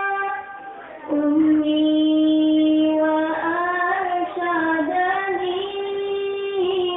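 A young female voice singing a sholawat, an Islamic devotional song, in long held notes with ornamented bends in pitch. The voice breaks off briefly just after the start and takes up a new phrase about a second in.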